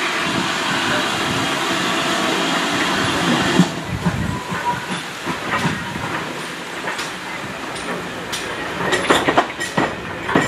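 Steam tank locomotive No. 4270, a GWR 42xx 2-8-0T, running slowly past with steam hissing. Its wheels knock and click over the rail joints, more and more often as it comes close near the end.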